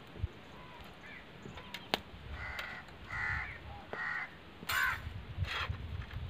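A crow cawing, about five caws in a row starting around two seconds in. Before them, a couple of light clinks as steel tumblers are set down on a steel plate.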